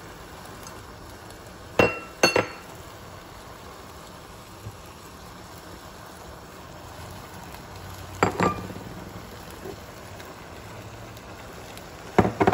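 Sharp clinks of kitchen utensils and cookware knocking together as vegetables are added to a pan, coming in quick pairs about two seconds in, about eight seconds in and near the end, over a faint steady hum.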